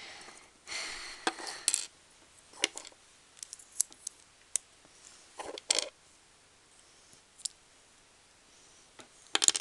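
Plastic Lego bricks clicking and clattering as they are handled, fitted together and set down on a wooden tabletop. Scattered sharp clicks, with short rattles of pieces about a second in and again around five and a half seconds, and a quick cluster of clicks near the end.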